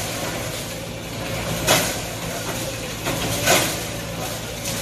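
Bulldozer's heavy diesel engine running steadily, with two short noisy bursts about two seconds apart.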